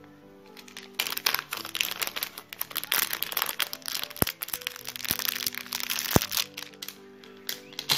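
Clear plastic packet crinkling and crackling as it is handled and opened. The crinkling starts about a second in and dies down near the end, over soft background music.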